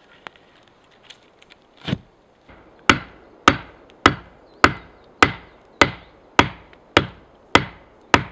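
A sharpened wooden stake being pounded into the forest floor: one softer blow about two seconds in, then about ten sharp wooden knocks in a steady rhythm, a little over half a second apart.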